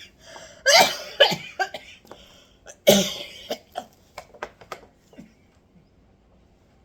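A woman coughing in hard fits, loudest about a second in and again about three seconds in, then several smaller coughs that die away.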